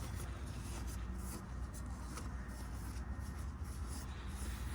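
Scratchy hand scrubbing with a sandpaper-like abrasive on the engine's oil separator mounting surface, cleaning off the old gasket area, over a steady low hum.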